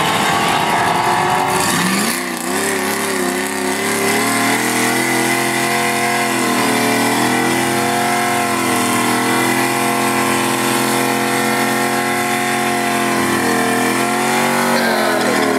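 Pickup-truck V8 with a 232/234 camshaft, revved up and held at high rpm through a long burnout as the rear tyres spin in smoke. The revs sag briefly about seven seconds in, then come down near the end.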